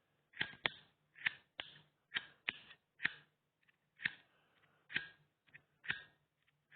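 A hand-held lighter being struck or clicked repeatedly: about a dozen short, sharp clicks, some in quick pairs, at uneven intervals.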